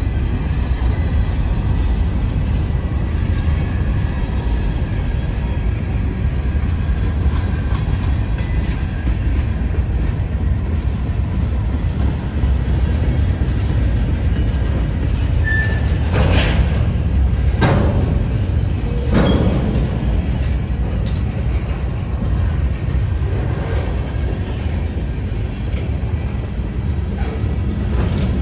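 Freight cars rolling past close by with a steady low rumble of wheels on rail. A little past the middle, three sharper clanks stand out within about three seconds.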